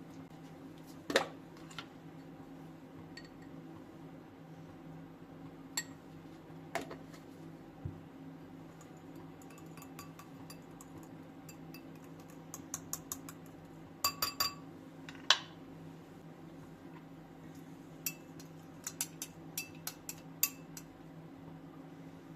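Dishes and cutlery clinking now and then over a low steady hum: scattered short clinks, a sharp one about a second in, a cluster around the middle with the loudest, and a quick run of small clinks near the end.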